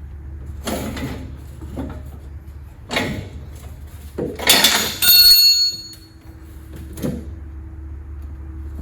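Metal exhaust parts being wrestled off a car: several knocks and scrapes, the loudest a clang about five seconds in that leaves a metallic ring, over a low steady hum.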